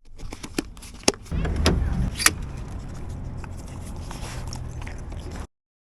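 Vehicle sounds: a few sharp clicks and knocks, then a steady low rumble like a running engine that cuts off suddenly near the end.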